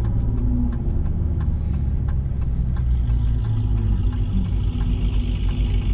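Dodge Challenger Widebody's Hemi V8 running low and steady at slow rolling speed, heard from inside the cabin. A light regular ticking, about three ticks a second, runs alongside and fades out about halfway through.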